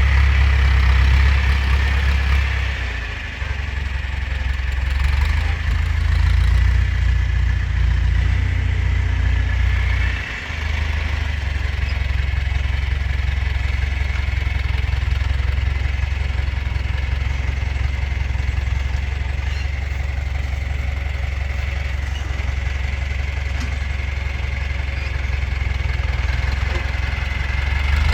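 Tractor engine running steadily with a deep, low rumble, dipping briefly a couple of times.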